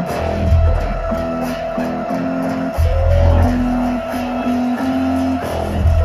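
Live electronic bass music heard through a venue's sound system. Deep bass hits come about every three seconds under a repeating melodic line and quick hi-hat ticks.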